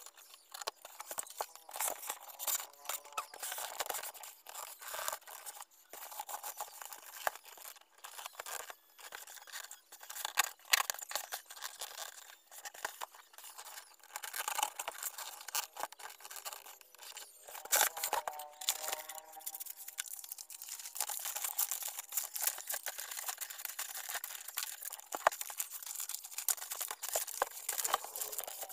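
Cardboard box and paper being handled: irregular scraping, rustling and short clicks and taps as the box is worked on and moved.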